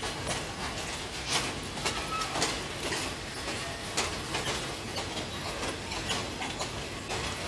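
Railway passenger coaches rolling past over the yard's rail joints and points, their wheels giving irregular sharp clacks and knocks over a low rumble.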